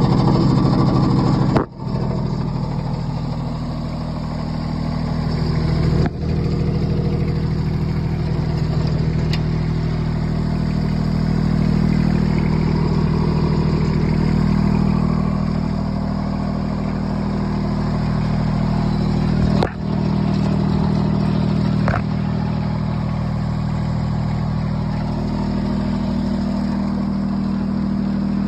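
John Deere 400-series garden tractor engine running steadily, with a few brief sudden dropouts in the sound.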